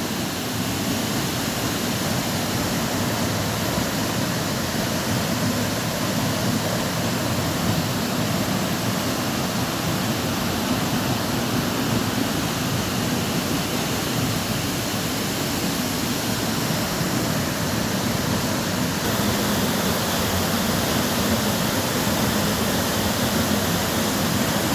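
Waterfalls rushing: a steady, unbroken sound of falling water at an even level throughout.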